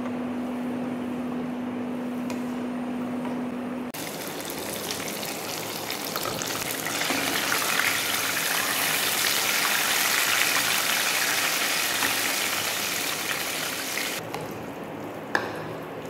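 Spring roll sizzling as it deep-fries in hot oil, a loud hiss that swells in the middle and cuts off abruptly about 14 seconds in. A steady low hum comes before the sizzle starts, and a knife clicks once on a plastic cutting board near the end.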